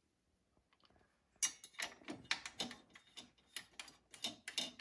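Small clicks and taps of a metal bias binder attachment being fitted to a serger's bed as its white screws are put in loosely. The sounds are irregular and start about a second and a half in.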